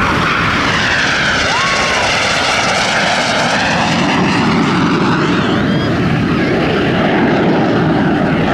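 Aermacchi MB-339 PAN jet trainer flying past, its Rolls-Royce Viper turbojet running loud and steady. The jet noise starts high and hissing, then drops to a lower rumble about halfway through as the plane passes and moves away.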